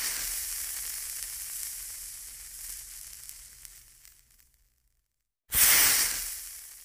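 Hissing sound effect: a noise that fades away over about four seconds, then a second, louder surge about five and a half seconds in that also fades out.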